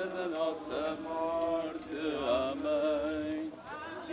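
Voices singing a slow religious chant in long held notes.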